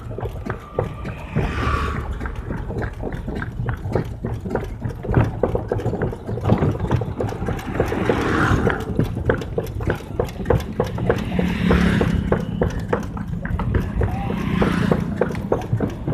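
A horse's hooves clip-clopping on a paved road as it pulls a wooden cart. The cart rattles and its wheels rumble.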